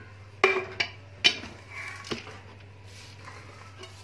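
Tin kitchen canisters and their lids clinking and knocking as they are handled and set down on a countertop: four sharp clinks in the first couple of seconds, then quiet handling.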